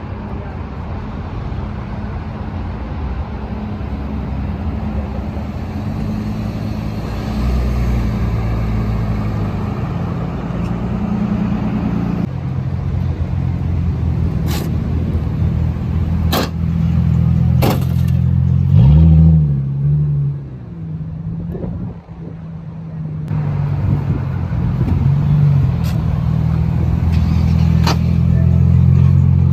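Car engines idling at close range, with one engine blipped up in revs and let fall back about nineteen seconds in. A few sharp clicks sound in the second half.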